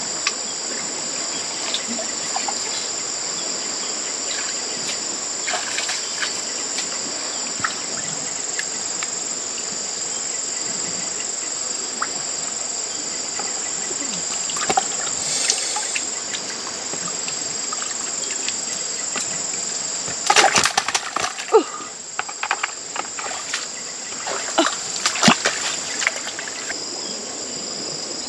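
Steady high drone of insects, with muddy shallow water splashing and sloshing as fish are grabbed by hand. There are two busy runs of splashing, about two-thirds of the way in and again shortly after.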